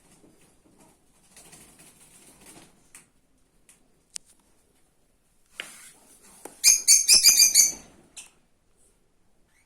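Lovebird giving a rapid burst of about ten shrill chirps, about seven seconds in, after soft rustling and a few light clicks.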